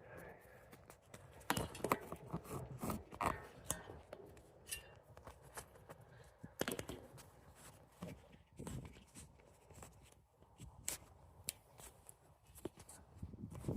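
Irregular crunches, scrapes and sharp clicks at a low level, with no steady rhythm.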